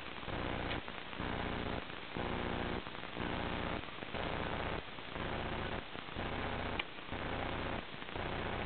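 Steady electrical hum with static hiss, swelling and dipping about once a second, with a couple of faint clicks.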